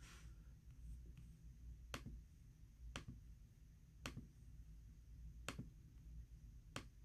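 Five sharp single clicks of a computer mouse button, a second or so apart, as numbers are keyed into an on-screen calculator, over a faint low hum.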